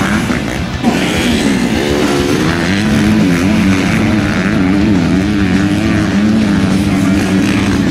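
Motocross dirt bike engines revving on the track, the pitch rising and falling with the throttle. There is a brief break about a second in.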